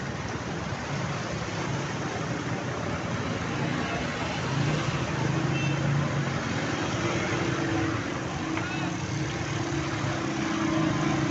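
A motor vehicle's engine running close by, its steady hum growing louder from about halfway in, over a continuous wash of traffic and water noise on a flooded road.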